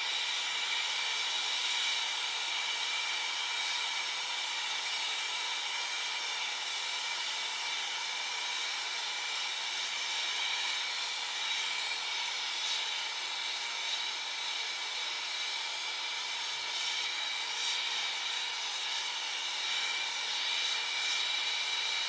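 Nitrogen purge gas flowing steadily through freshly brazed copper refrigerant lines, a continuous hiss with a faint steady whistle, left running so the joint cools under nitrogen.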